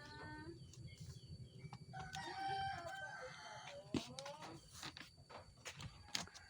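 A rooster crowing once, a long call about two seconds in, among shorter rising chicken calls and a few sharp knocks.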